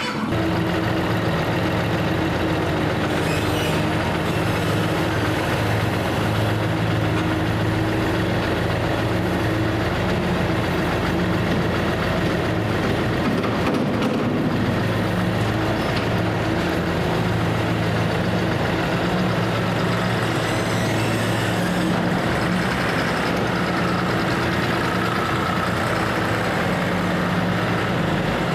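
Large farm tractor engine running steadily, its pitch shifting slightly a couple of times.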